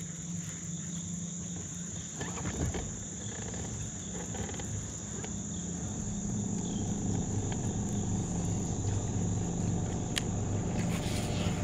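Insects buzzing in a steady high drone, over a low electric hum, likely the bass boat's trolling motor, that cuts in and out. A couple of sharp clicks, one a little past the middle, come from the casting and reeling of a baitcasting reel.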